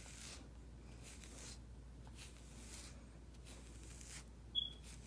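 Faint scratchy strokes of a FURminator deshedding tool raking through a wolf's thick undercoat, about one stroke a second, pulling out loose shedding fur. A brief high squeak comes about four and a half seconds in.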